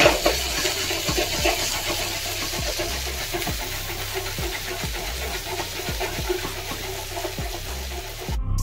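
Chopped onion and capsicum sizzling in hot oil in a steel pan, with a steel ladle clinking and scraping against the pan at intervals as they are stirred. Music cuts in abruptly just before the end.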